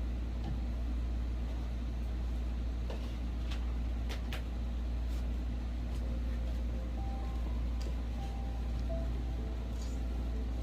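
A steady low hum, with a few faint clicks and knocks around the middle.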